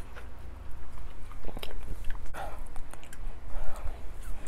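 Close-up eating sounds: chewing and sucking meat from snow crab legs, with short irregular clicks and smacks.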